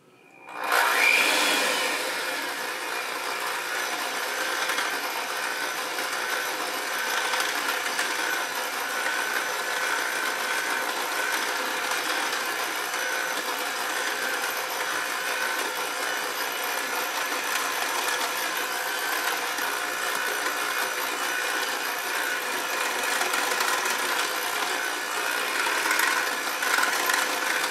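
Electric hand mixer switching on at its slowest speed, then running steadily as its beaters churn flour and cocoa into chocolate cake batter in a glass bowl.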